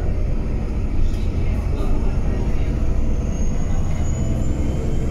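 Cabin noise of a 2008 Irisbus Crossway 12 LE city bus under way: the steady low rumble of its diesel engine and drivetrain mixed with road noise. A faint thin high tone comes in about three seconds in.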